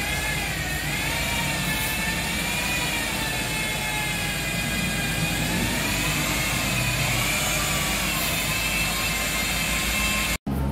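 An electric motor running with a steady whine whose pitch wavers slowly up and down; it cuts off suddenly near the end.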